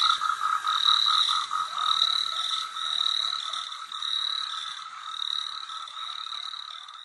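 Nature recording of a frog and insect chorus: a fast pulsing trill under a higher chirp repeated about once a second, slowly fading out.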